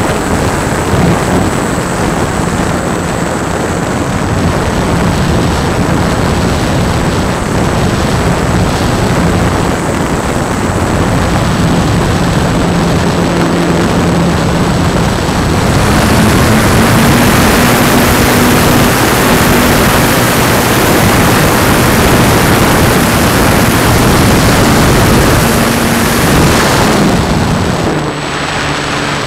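Electric motor and propeller of a World Models Thermal Rider EP radio-controlled plane running in flight, heard from a camera on the plane, under heavy wind rush on the microphone. A little past halfway the motor tone rises slightly and the rush grows louder, then eases near the end.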